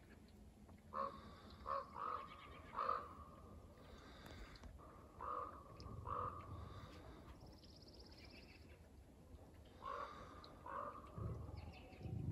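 Ravens calling: a run of short calls, four in quick succession in the first three seconds, then a pair about five seconds in and another pair about ten seconds in. Small birds chirp faintly between them, with a brief high trill near the middle.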